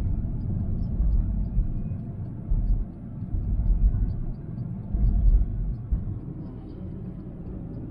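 Low in-cabin rumble of a Honda City petrol sedan cruising: engine, tyre and road noise, swelling and easing a few times.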